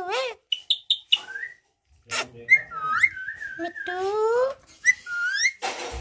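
Rose-ringed (Indian ringneck) parakeet whistling and calling: a string of short notes that rise and fall in pitch, with a longer wavering whistle about halfway through. A brief rustle near the end.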